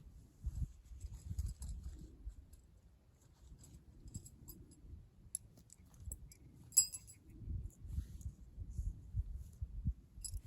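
Light clicks and clinks of tent poles and pegs being handled while a tent is pitched, one sharper clink about two-thirds of the way in, over a low uneven rumble on the microphone.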